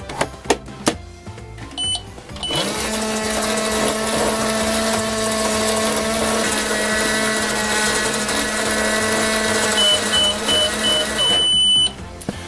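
Toy 'magic microwave' running: a few clicks as it is set going, then a steady electric whirring hum for several seconds. Near the end come a run of short high beeps and one longer beep, the cycle finishing, before the hum cuts off.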